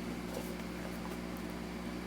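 Steady low background hum, like a fan or electrical appliance, with a few faint light clicks.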